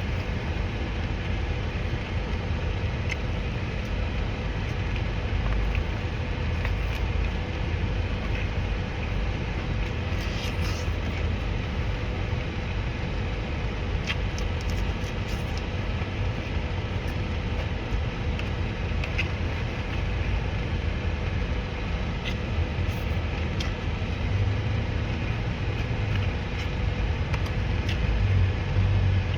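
A steady low rumble with a faint, even hum above it, unchanging throughout, with a few faint small clicks scattered through it.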